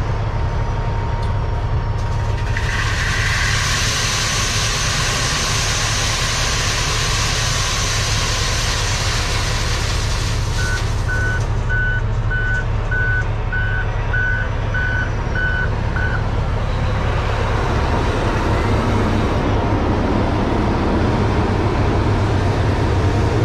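Diesel engine idling steadily under a loud rushing hiss of rock aggregate pouring from a loader bucket into the trailer for about nine seconds. As the hiss ends, the loader's backup alarm beeps about nine times, nearly two beeps a second.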